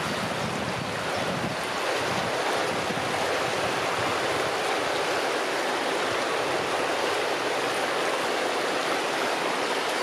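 River water rushing and rippling steadily around half-submerged branches in the shallows at the bank.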